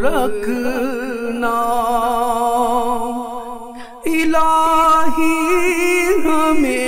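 A man singing an Urdu devotional dua, holding long drawn-out notes. One held note fades away about three seconds in, and a new one begins sharply about four seconds in.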